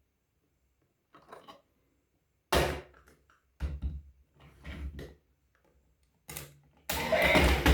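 Handling noises during unboxing: a series of sharp thunks and knocks with brief rustles, the loudest about two and a half seconds in. Music starts near the end.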